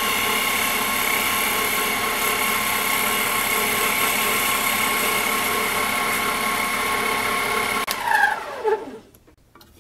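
Harbor Freight metal lathe running steadily with a whine of many tones from its motor and gears. About 8 s in it is switched off and the whine falls in pitch as the spindle spins down.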